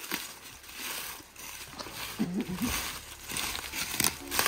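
Footsteps crunching through dry leaves and twigs on a forest floor, with the irregular steps of people hiking.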